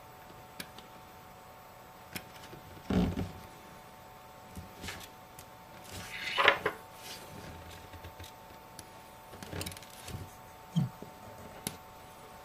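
Hands handling small phone parts and tools on a work surface: scattered light clicks and taps, a louder knock about three seconds in, and a short scrape or rustle near the middle, over a faint steady hum.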